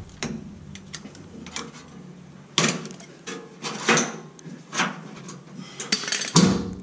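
Metal hardware clicking and knocking: a steel nut, washers and bolt being handled against a steel rock-slider bracket on a chassis rail, several separate clinks over a few seconds, the loudest knock near the end.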